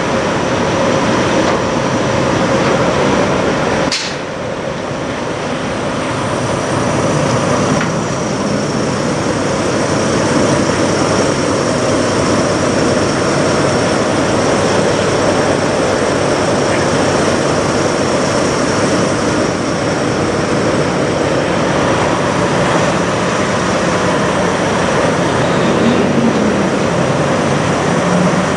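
Steady mechanical drone of idling semi-truck diesel engines, with one short sharp click about four seconds in.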